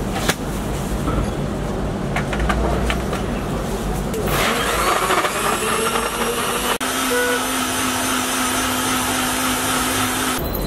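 Electric blender motor starting suddenly about four seconds in and running at high speed, blending a milk, sugar and dragon fruit milkshake, then cutting off just before the end. Before it starts there are a few light clicks and knocks of the jar being handled.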